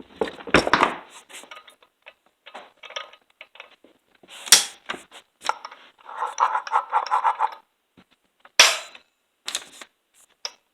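Chainsaw chain brake on a Stihl MS460 being worked by its hand guard: three sharp snaps as the spring-loaded brake trips, about half a second, four and a half and eight and a half seconds in, with smaller plastic-and-metal clicks and a short rattle between them.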